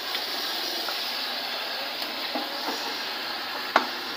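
Pork spare ribs sizzling in a hot, steaming pan with a steady hiss, stirred with a spatula that scrapes and clicks against the pan, with one sharp clink near the end.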